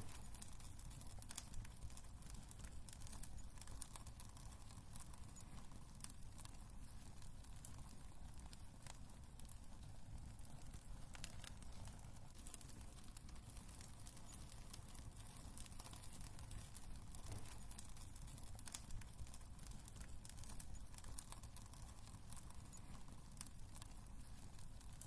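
Wood fire crackling in a fireplace: scattered sharp pops and snaps over a low, steady rumble of the flames.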